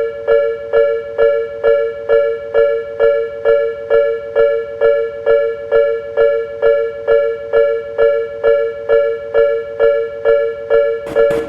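Japanese railroad crossing (fumikiri) warning bell ringing steadily, nearly three even dings a second, each ding sounding two pitches together, as it does while a train approaches. A couple of sharp clicks come in at the very end.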